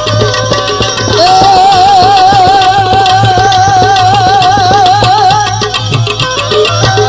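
Indian devotional folk music from a live bhajan ensemble: a hand-drum beat under steady sustained chords, with a long held note that wavers evenly from about a second in until near the end.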